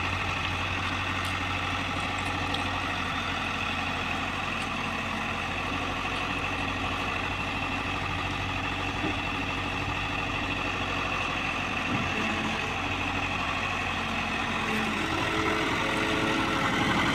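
Heavy diesel engine running steadily at idle, its low hum unbroken, growing a little louder near the end.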